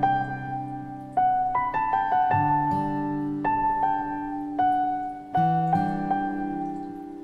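Slow piano music: single notes and chords struck roughly once a second, each left to ring and fade.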